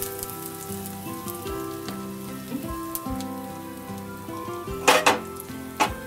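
Mustard seeds and fenugreek sizzling and crackling in hot oil and ghee as a spice tempering fries, with scattered small pops and a louder burst of sizzle about five seconds in. Soft instrumental music plays underneath.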